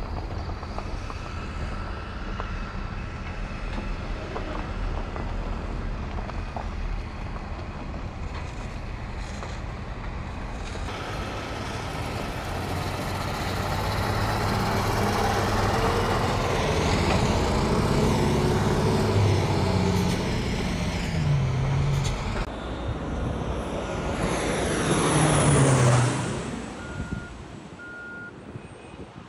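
Steady engine rumble from vehicles working the landfill, growing louder with a wavering pitch. Near the end, a single-engine firefighting plane flies low overhead: its engine builds to a peak, then falls in pitch as it passes and fades quickly.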